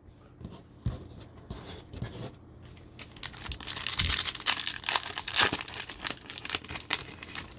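Plastic trading-card pack wrapper crinkling and tearing as it is opened, with scattered handling clicks at first and the crinkling heaviest after about three seconds.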